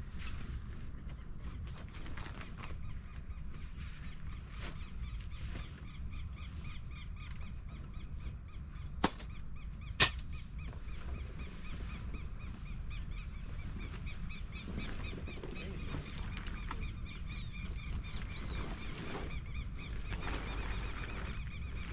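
Outdoor ambience: birds calling over a steady high buzz and a low rumble. Two sharp clicks about a second apart, near the middle, stand out as the loudest sounds.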